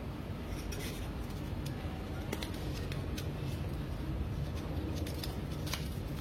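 Several sharp, irregular clicks and snaps of small plastic parts being handled, over a steady low hum.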